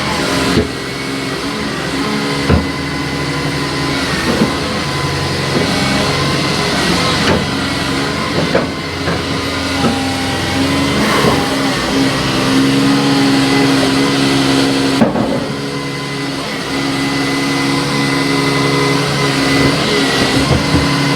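Engine of a boom-equipped construction machine running steadily as the boom is worked, with small shifts in pitch and level.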